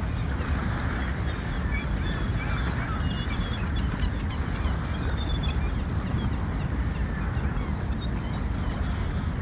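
Outdoor harbour ambience: a steady low rumble, with short high bird calls scattered through the first two-thirds.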